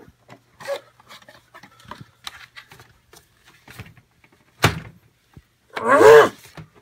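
A cardboard box being handled: light scuffs and clicks of cardboard, a sharp knock about four and a half seconds in, then a short pitched sound whose pitch wavers, the loudest thing here, about six seconds in.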